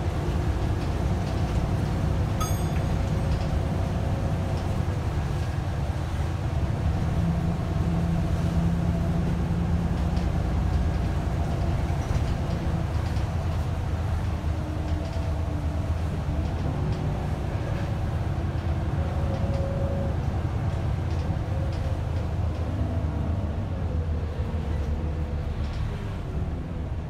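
Scania L94UB bus's rear-mounted diesel engine and driveline running while under way, heard from the rear seats: a steady low rumble with an engine note that rises and falls as it pulls and changes gear. About two and a half seconds in, a short bell ding sounds, the stop being requested.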